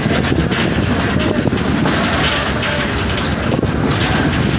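Passenger train rolling along the track, heard from aboard the car: a steady rumble of wheels on rail with light rattling.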